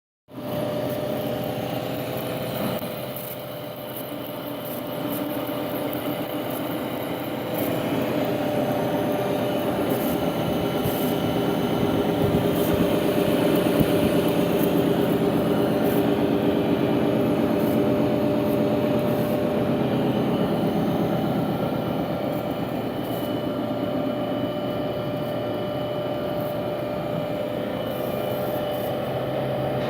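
Cazeneuve engine lathe running steadily, a mechanical hum made of several steady tones. It grows louder from about five seconds in and eases off slightly in the last third.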